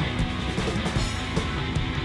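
Background rock music with guitar and a drum kit keeping a steady beat.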